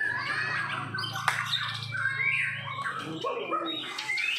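White-rumped shamas (murai batu) singing over one another, a dense mix of rapid whistles, chatter and harsh squawking notes, with a low steady hum under the first part and a sharp click about a second in.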